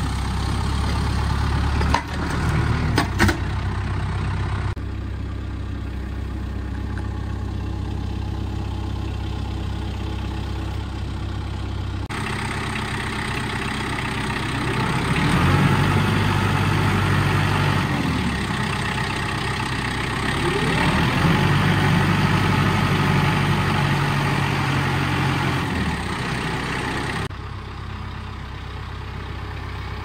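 Kubota tractor's diesel engine running steadily, revving up louder twice while its loader lifts and carries a heavy pine log. A few sharp knocks come about two to three seconds in.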